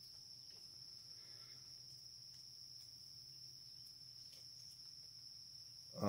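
Near silence, with faint, steady, high-pitched insect chirring in the background.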